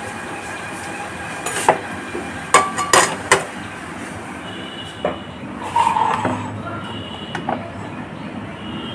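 A metal saucepan, spoon and tea strainer clinking and knocking as tea is made: a handful of short, sharp metallic clinks and taps, bunched between about one and a half and three and a half seconds in, with a few lighter ones later.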